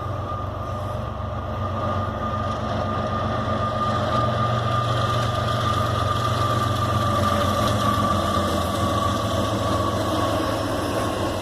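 Diesel locomotives of a Norfolk Southern freight train running by, a steady engine rumble with a high whine that sinks slowly in pitch. It grows louder toward the middle and eases slightly near the end.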